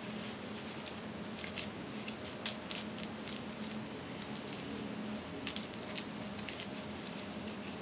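Fingers twisting and working curly hair: scattered soft crackles and small clicks over a steady background hiss with a faint low hum.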